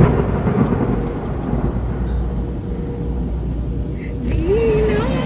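A steady low rumble heard from inside a car, with a wavering pitched tone rising and falling near the end.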